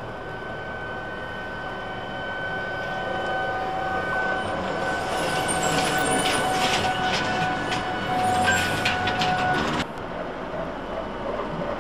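Trolleybus approaching and passing close by: a steady whine with two held tones, growing louder, with a stretch of clicking and rattling as it goes by. The sound drops off abruptly near the end to quieter street noise.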